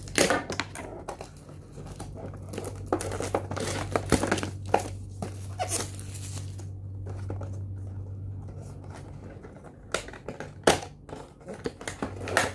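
Plastic wrapping crinkling and cardboard boxes being handled, in irregular rustles and scrapes. A steady low hum runs underneath.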